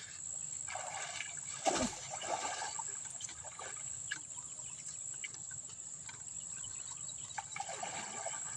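Water sloshing and splashing as a person wades and swims through a stream, with one louder splash about two seconds in. A steady high whine sits behind it.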